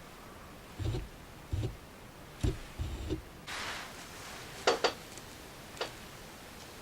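Sony SAL35F18 lens autofocusing: short low buzzing bursts of the focus drive moving the lens back and forth, followed by a few sharp mechanical clicks.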